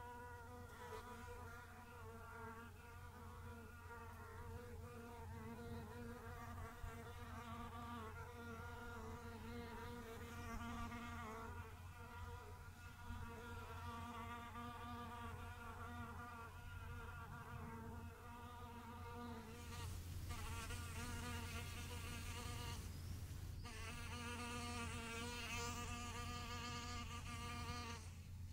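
Several ground-nesting bees buzzing in flight low over their nest holes in bare soil. The buzz wavers in pitch as they circle and grows louder and fuller about two-thirds of the way through, with a brief drop just after.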